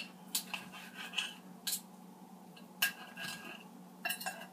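Metal forks clinking and scraping against a ceramic dinner plate as a cooked T-bone steak is pulled apart: a handful of short, separate clicks and scrapes.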